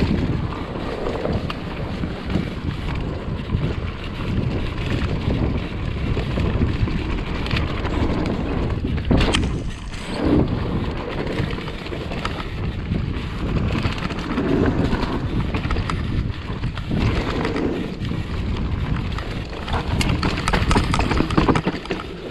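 Mountain bike descending a dirt trail: wind rushing over the microphone with tyre and frame noise, and a sharp knock about nine seconds in.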